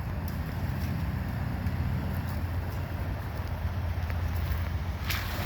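Steady low outdoor rumble with a few faint clicks; a louder hiss comes in near the end.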